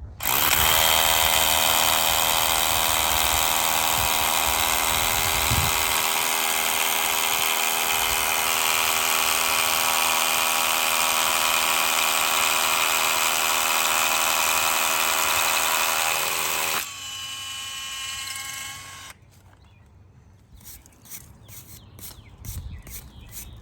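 Power drill boring a hole in rock for a concrete screw, running steadily at full load for about seventeen seconds. It then runs lighter and quieter for about two seconds before stopping. A quick run of light clicks follows near the end.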